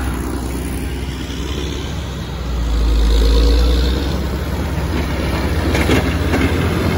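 Diesel engines of snow-clearing machines running. A deep rumble swells about three seconds in, then gives way to a steadier engine drone.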